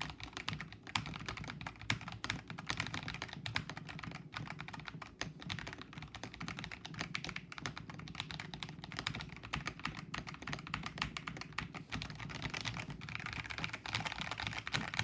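Fast, continuous typing on a mechanical keyboard fitted with holee-modded stabilizers, PE foam and a five-layer tape mod: a dense, unbroken stream of keystroke clacks.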